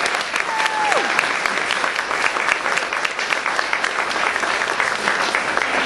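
Audience applauding steadily at the end of a stage song, many hands clapping at once, with a short falling tone about half a second in.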